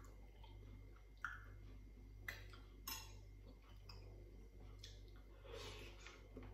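Metal cutlery clinking against ceramic dishes: three short, sharp clinks in the first three seconds, with quiet handling of spoon and fork against bowl and plate after.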